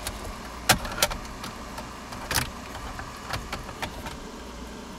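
Sharp clicks and light rattles of a car stereo head unit's metal case and its plastic wiring connectors being handled while the RCA cables are connected. The loudest clicks come about a second in and again about halfway, over a steady low hum.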